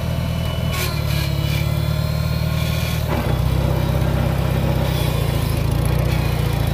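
Farmall 140 tractor's four-cylinder gasoline engine running steadily as the tractor moves along pulling its belly-mounted cultivator, with a few clanks about a second in. The engine grows louder a little after three seconds in.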